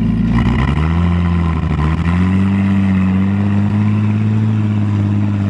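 A 1950 Bombardier B12 snowmobile's Chrysler flathead six-cylinder engine pulling the tracked snow bus along. Its pitch drops at the start, climbs twice over the next couple of seconds, then settles into a steady, slowly rising run.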